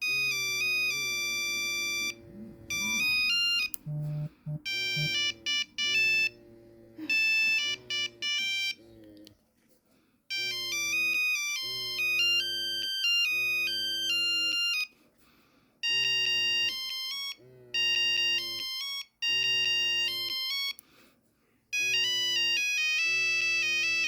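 Nokia 3310 playing a custom monophonic ringtone through its small speaker: a tune of short electronic beeps at changing pitches. It breaks off about ten seconds in and then starts again.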